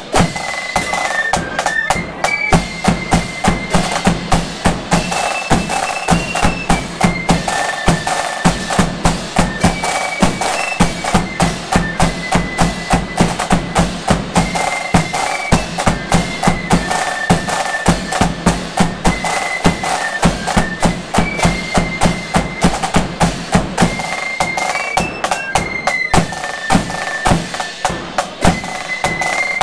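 Marching flute band playing a tune: flutes carry the melody over a steady beat of rattling side drums, bass drum and hand cymbals.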